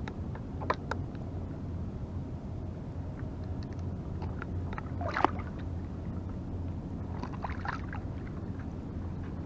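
Water sloshing around a small plastic fishing kayak, with a steady low hum underneath. A few short clicks and knocks come from the rod and gear being handled while a fish is landed.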